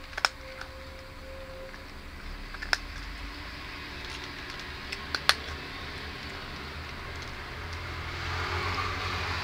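A cat crunching dry kibble from a steel bowl: sharp, crisp crunches in three bursts, right at the start, a little under three seconds in and about five seconds in, the last the loudest. A soft rustle rises near the end.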